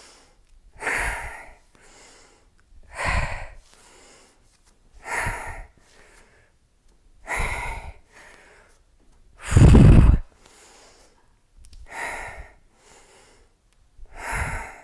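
A woman's hard breathing through a set of barbell deadlift reps: a strong exhale about every two seconds, seven in all, with quieter inhales between. The exhale about ten seconds in is the loudest and deepest.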